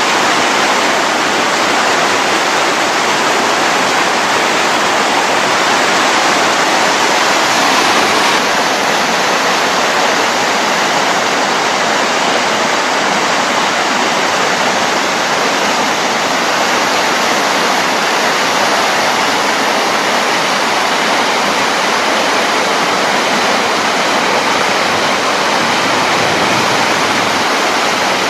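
Floodwater rushing, a loud, steady wash of water noise.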